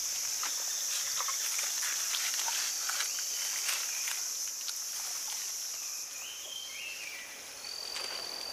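Rainforest ambience: a steady, high insect chorus of crickets or cicadas runs throughout, with scattered light crackles. In the second half a bird gives a few short chirps, then a held high whistle.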